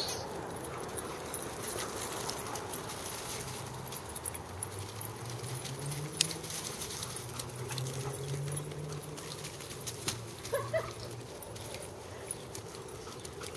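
Dogs running and romping on soft ground: scattered paw thuds and scuffs, with a low steady hum rising slightly through the middle and a brief high-pitched sound about ten seconds in.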